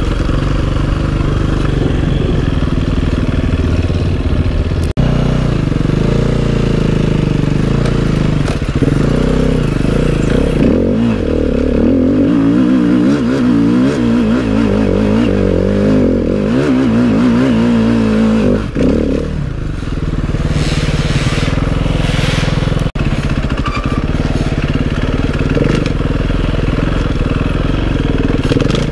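Enduro dirt bike engine running under load off-road, its revs rising and falling quickly as the throttle is worked, with scraping and clattering from the bike.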